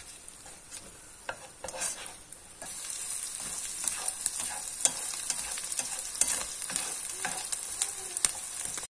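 Raw chicken cubes, scrambled egg and spice paste sizzling in hot oil in a nonstick wok while a plastic spatula stirs and scrapes them with repeated short strokes. The sizzle grows louder about two and a half seconds in and cuts off abruptly near the end.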